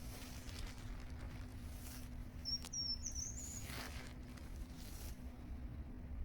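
Duck feeding in the water, its bill dabbling and splashing in short spells. A small bird chirps high and briefly about two and a half seconds in, over a steady low hum.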